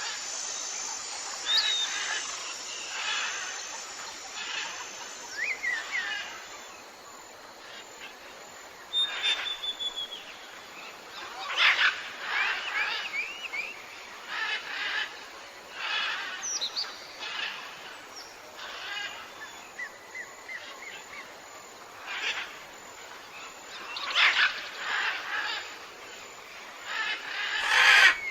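Several birds calling: many short chirps and whistled notes, some sliding quickly up or down in pitch, in an ongoing outdoor chorus.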